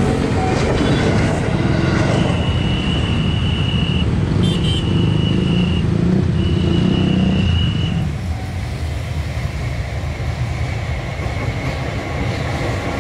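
KRL electric commuter train rumbling past a level crossing, followed by the engines of motorcycles and bajaj crossing the tracks. A steady high tone sounds twice, for a few seconds each. After that the traffic noise drops to a quieter hum.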